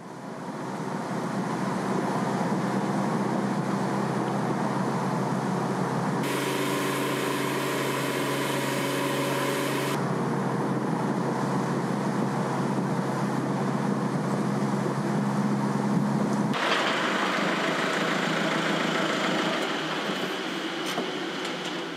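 Steady road and engine noise of a moving car, heard from inside the car, with a low hum. The sound changes abruptly three times, at about 6, 10 and 17 seconds, as the shots cut.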